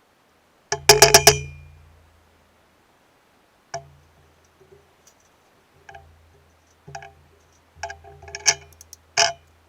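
Metal parts of a pillar drill head clinking and knocking as they are handled: a quick run of loud, sharp clinks about a second in, then scattered lighter clinks and knocks.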